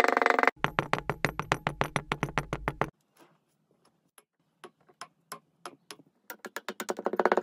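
Background synthesizer music pulsing rapidly on sustained pitched notes. It drops out to near silence about three seconds in, leaving only scattered faint ticks, and comes back near the end.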